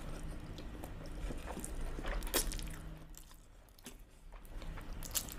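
Close-miked mouth sounds of a person eating carbonara noodles: slurping and chewing with scattered wet clicks and smacks, easing off briefly past the middle.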